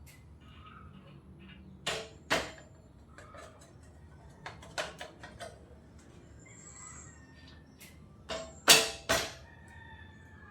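A series of sharp metallic clinks and knocks from spanners and sockets against the fork and yoke fittings: two near the start, a few quick light ones mid-way, and the loudest three close together near the end.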